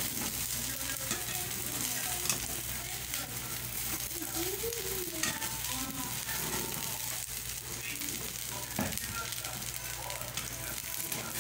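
Egg omelette sizzling steadily in a frying pan on the stove, with a few light clicks.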